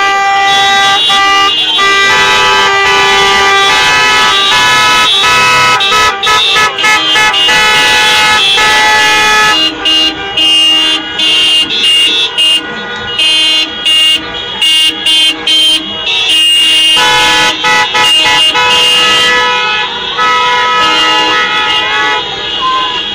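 Many car horns honking at once from a line of cars, several horns of different pitch held in long overlapping blasts. In the middle stretch the honking breaks into short repeated toots before long blasts resume.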